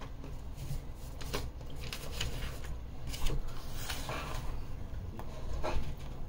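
A person biting into and chewing a grilled peri peri chicken sandwich on crusty bread: wet chewing and mouth sounds with several short crunchy clicks spread through, the sharpest about three seconds in.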